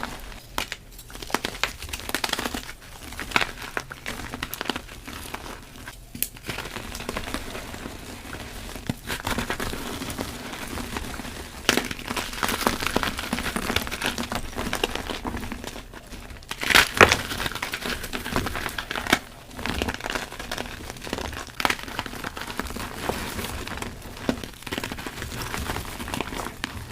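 Reformed gym chalk being crushed and crumbled: continuous dry crunching and crackling with scattered sharper snaps, the loudest cluster about seventeen seconds in.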